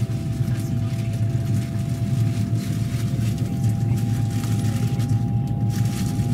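Train running along the track: a steady low rumble with faint ticking and a constant whine, a second, slightly higher whining tone coming in a little past halfway.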